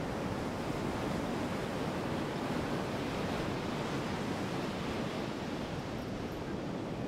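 Ocean surf washing up a sandy beach: a steady rush of small breaking waves.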